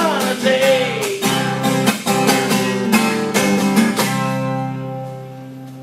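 Closing bars of a song on strummed acoustic guitar, with a sung note trailing off in the first second. The last chord is struck about four seconds in and left to ring, fading out.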